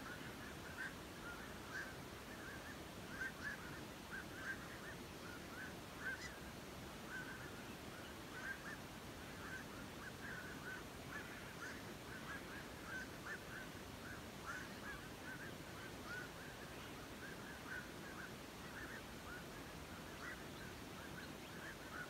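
Chorus of many roosting waterbirds, egrets, herons and Asian openbill storks, calling from a colony in the treetops: short overlapping calls, several a second, with no let-up.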